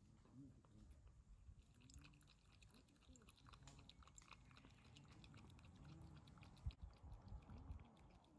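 Stray cat lapping cat milk from a bowl: a faint, quick run of wet clicks from the tongue. A single low thump comes near the end.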